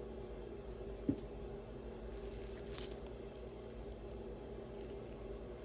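Costume-jewelry necklaces, glass beads and metal chain, clinking and rattling briefly as they are handled and set down, with a soft knock about a second in and the rattle a second later. A steady low hum sits underneath.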